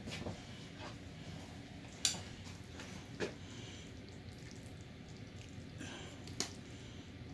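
Metal spoon clinking against a skillet and plate as cream sauce is spooned over the dish: three short sharp clinks, about two, three and six seconds in, over a low steady background hum.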